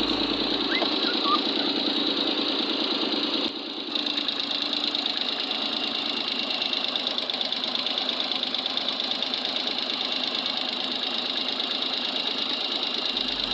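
A small car's engine idling steadily, left running after a start on a borrowed battery so that it charges the battery. The sound drops briefly about three and a half seconds in.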